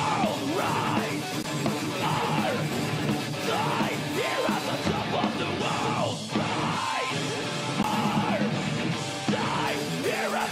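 Pop-punk band playing live: electric guitars, drums and vocals.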